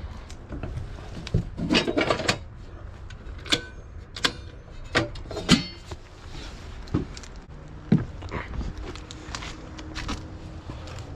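Tools and metal parts being handled: a run of sharp clicks and metallic clinks, a few with a brief ring, over a low steady hum.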